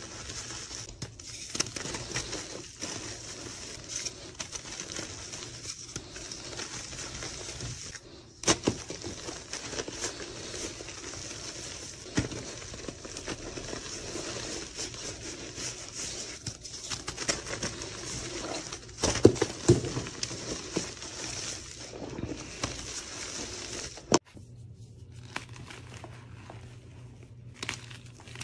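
Reformed gym chalk blocks being crushed and crumbled by hand: a steady dry crunching and gritty crumbling with sharp cracks as lumps break, loudest about two thirds of the way in. It turns quieter after a sudden cut near the end.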